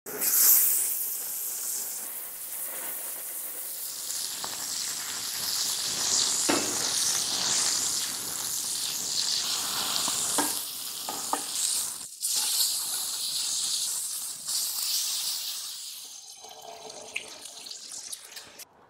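Chicken cutlet laid into hot oil in an iron griddle pan and sizzling, loudest in the first second, the frying hiss running on through several shots with a few light knocks of utensils. Near the end a quieter sizzle of an egg frying in oil.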